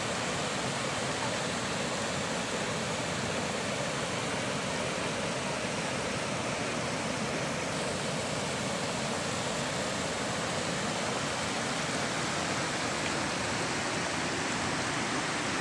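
Brown floodwater rushing over a low road causeway and spilling off its edge across rocks, a steady unbroken rush of water.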